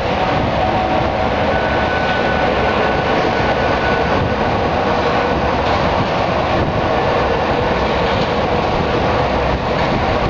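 San Diego Trolley light-rail train rolling slowly through a curve, a steady rumble of steel wheels on rail. A faint thin wheel squeal comes in about two seconds in and fades out around four and a half seconds.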